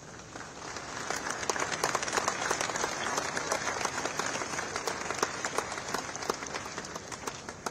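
A crowd applauding, building up about a second in and dying away near the end.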